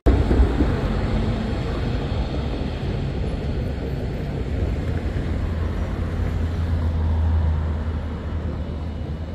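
Steady low rumble of road traffic, swelling slightly about two-thirds of the way through.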